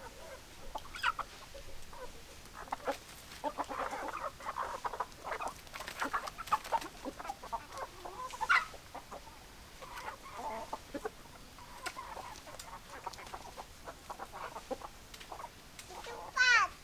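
Chickens clucking: many short, irregular hen calls and clicks overlapping, with a louder call near the end.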